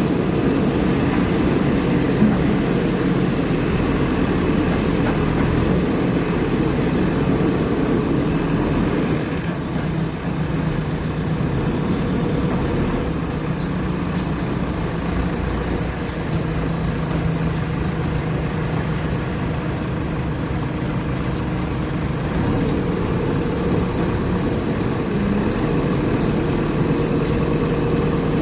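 Backhoe loader's diesel engine running steadily, its pitch shifting slightly a few times as the engine speed changes.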